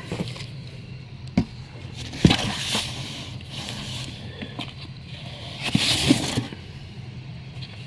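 Comic books being handled and slid into a cardboard box and bins: paper rustling and scraping in two longer stretches, with a couple of sharp knocks in the first few seconds.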